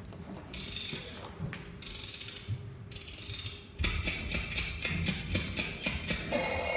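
Alarm clock sounds: three short ratchet-like winding rasps, then steady ticking about four times a second, and near the end the alarm bell starts ringing.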